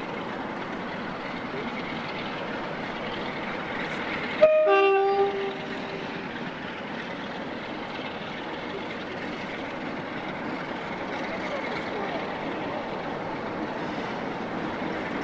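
Two Class 47 diesel locomotives with Sulzer engines running under load as they climb out of the sidings with coaches. About four and a half seconds in, a two-tone horn sounds once, a short high note then a longer low note.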